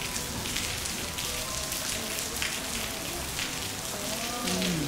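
Steady rain falling and pattering on wet hard paving.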